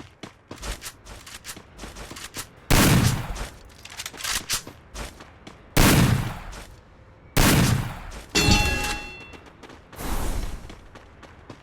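Video-game gunfire: volleys of quick shots with five heavier blasts, each with an echoing tail, the loudest about three and six seconds in.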